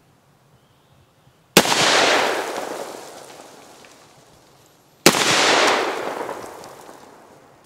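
Two shots from a Remington VersaMax Tactical 12-gauge gas-operated autoloading shotgun, about three and a half seconds apart: first a PDX-1 slug-and-buckshot load, then a 9-pellet buckshot load. Each is a sharp blast followed by a long echo fading over about two seconds.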